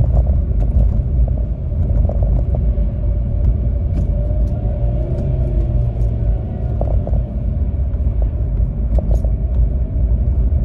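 A car driving along a road: a steady low rumble of engine and tyres, with a faint tone that bends up and down about halfway through.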